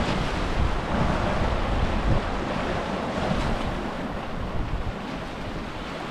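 Sea waves breaking and washing up a shingle beach, with wind buffeting the microphone in gusty low rumbles.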